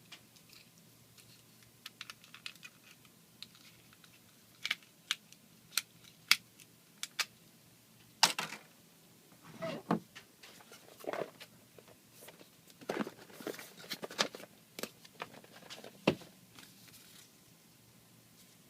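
Irregular clicks and taps of small hard plastic parts being handled, with a few brief rustles of packaging.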